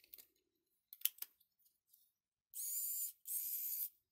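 A few light plastic clicks, then two short rasping scrapes about half a second apart: an 18650 battery cell sliding against the ridged walls of the 3D-printed plastic handle as it is pushed in.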